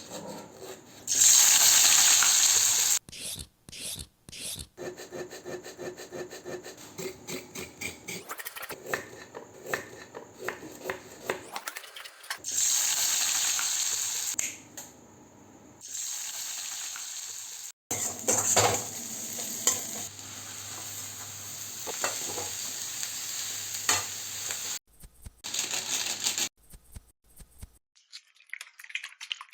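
Stir-frying chow mein in a hot pan: oil sizzling loudly in stretches, with a utensil stirring, clicking and scraping against the pan, in short clips that cut in and out abruptly.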